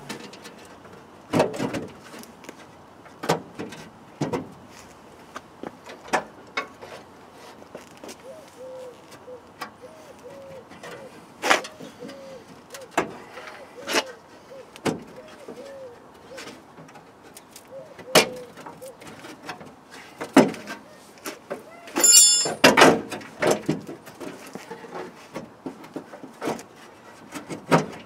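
Irregular knocks, clicks and scrapes of hand work at a car's wheel arch as screws are undone and the inner wheel arch liner panel is worked loose. There is a run of small squeaks about nine seconds in, and a brief high squeal with a cluster of louder knocks about 22 seconds in.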